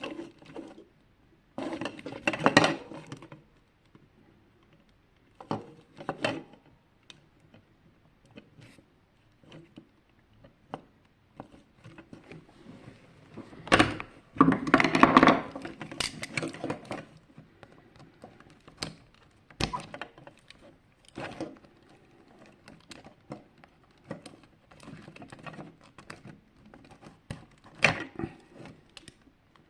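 Small plastic parts of a projection alarm clock being handled and taken apart: scattered clicks and knocks, with longer stretches of clattering and scraping about two seconds in and again around the middle.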